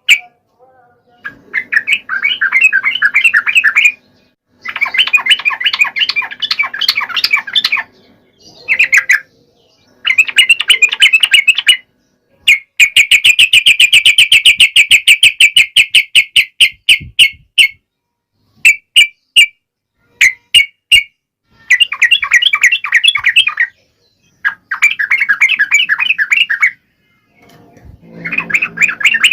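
Sooty-headed bulbul (trucuk) singing: loud phrases of rapid, repeated chattering notes, each lasting a few seconds, broken by short pauses and a run of separate short notes about two-thirds of the way through.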